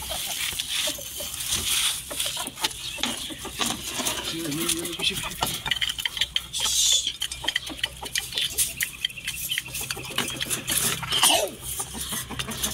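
Chicken grain being handled: a plastic bag rustling, grain pattering into bowls and a tin, and the wire-mesh cage rattling and clicking. A chicken gives a short falling call near the end.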